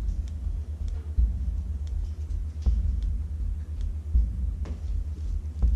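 Slow footsteps on a debris-strewn floor, a knock about every second and a half, over a steady low rumble on the camera microphone.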